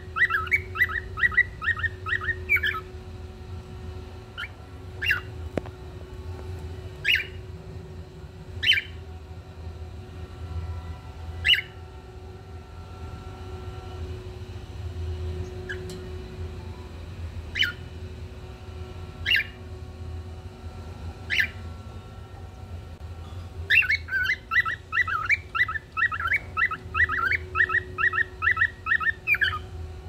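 Cockatiel chirping and singing: a fast run of chirps at the start, single sharp chirps every couple of seconds in between, then another fast chattering run near the end. A steady low hum runs underneath.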